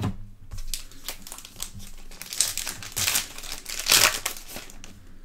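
Foil wrapper of a Donruss Optic football card pack being torn open and crinkled by hand: an irregular run of crackling, loudest about three and four seconds in.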